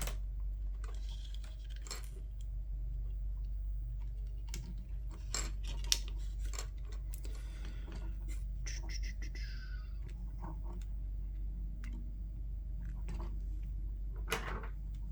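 Small plastic clicks and scratching as a wire is fed through the plastic headband of a gaming headset, with a sharp click about six seconds in and a short falling squeak around nine seconds. A steady low hum runs underneath.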